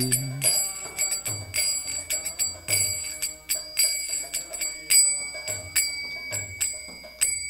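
Instrumental close of a kirtan: small brass hand cymbals (kartals) struck in a quick rhythm, each clash ringing, with low drum beats under them. A last cymbal strike near the end rings out.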